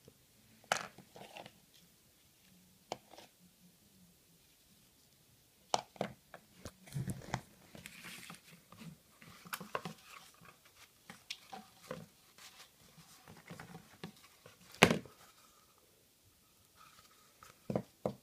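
Handling noises from a homemade paper rifle: scattered taps, clicks and knocks at irregular intervals, busiest in the middle, with one sharp snap about fifteen seconds in that is the loudest.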